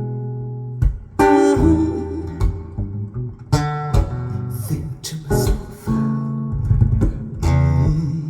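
Instrumental music: guitar playing plucked notes and strummed chords over bass notes, with no singing.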